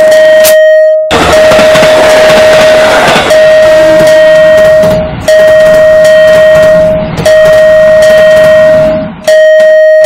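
Railroad crossing warning alarm sounding a steady high tone, broken by short gaps about every two seconds, with the noisy rumble of trains passing from about a second in until about nine seconds.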